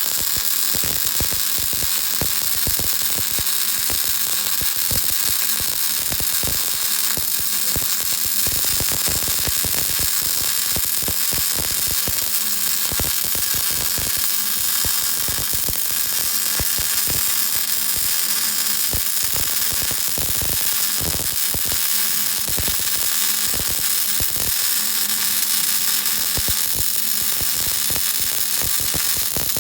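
Welding arc running continuously with a steady, dense crackle and hiss.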